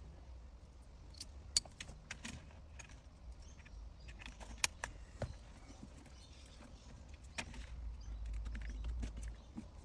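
Scattered small clicks and taps of plastic wiring connectors and cables being handled and plugged together, with a low rumble of handling noise near the end.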